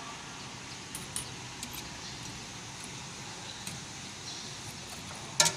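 Small metal clicks and taps of a laser cutter's lens tube being handled and fitted back onto the laser head, with one sharper, louder click near the end, over a steady background hiss.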